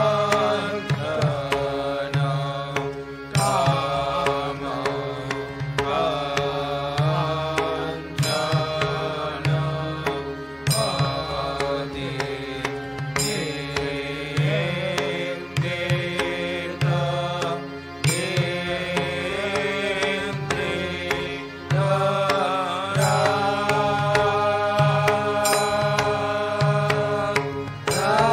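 Devotional arati hymn sung in long phrases, over a steady low drone and drum, with sharp strokes every couple of seconds.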